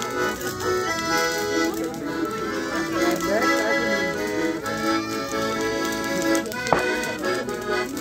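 Accordion music playing held chords and runs in a traditional dance style. A single sharp crack sounds a little before the end.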